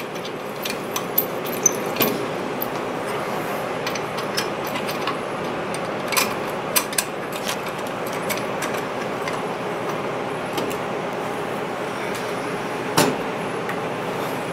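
Scattered small metallic clicks and taps of a hex key working the screws of a Braillo magnet rack as it is fastened back together, the sharpest knock near the end, over a steady background hiss.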